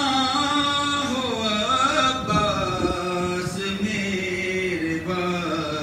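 A man's voice chanting a mourning lament (noha) in long held notes that slide up and down, with a short breath about five seconds in.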